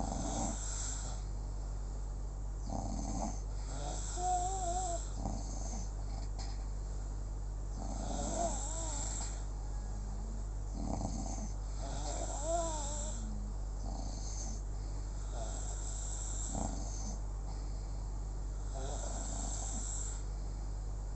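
Slow, regular snoring, one breath about every four seconds. Some breaths carry a short whistling squeak. A steady low hum runs underneath.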